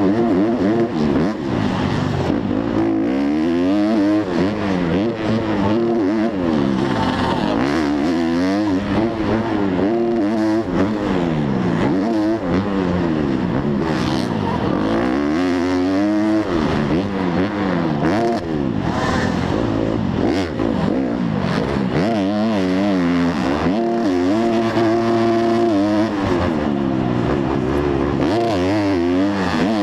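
250cc four-stroke supercross bike engine heard from the rider's helmet camera, revving up and dropping again and again as the throttle is opened and chopped through the turns and jumps.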